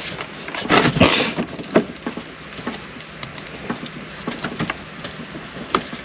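Irregular plastic clicks and scraping from hands working an ambient light sensor and its small clip loose by feel, with a cluster of handling noise about a second in and a few sharp ticks later.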